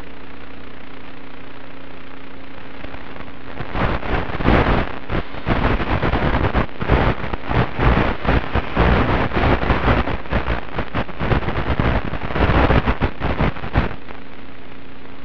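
Audio channel of an analog 1.3 GHz FPV video link recorded on the goggle DVR: a steady electrical hum, then from about four seconds in a dense, irregular crackling and popping static that lasts about ten seconds before the plain hum returns.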